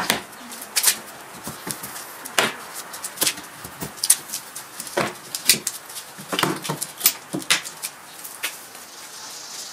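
Homemade wooden folding table being folded up: an irregular string of sharp wooden knocks and clicks as the hinged legs and plywood top halves swing and bump together. The knocks thin out near the end.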